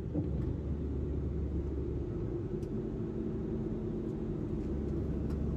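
Road and engine noise inside a car's cabin while driving: a steady low rumble, with a faint steady hum joining about halfway through.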